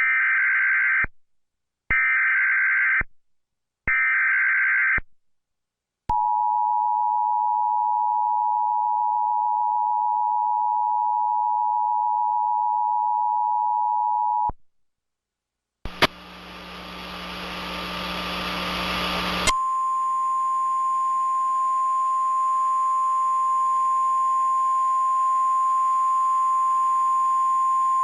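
Emergency alert for a tornado warning. It opens with three one-second bursts of screeching digital header data, then the two-tone attention signal held for about eight seconds. After a short gap comes about three and a half seconds of static hiss, then a steady single-pitch warning alarm tone for about ten seconds.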